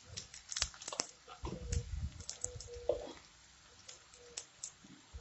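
Sliced onions frying in oil in a karahi, giving scattered small crackles and ticks, with a few soft knocks in the first two seconds.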